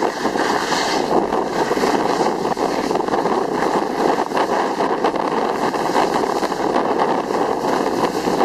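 Steady rush of wind buffeting the microphone, mixed with the rough scrape of sliding fast over snow on a downhill run.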